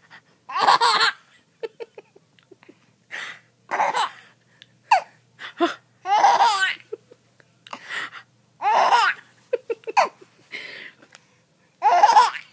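A four-month-old baby boy laughing in a string of short bursts with brief pauses between them.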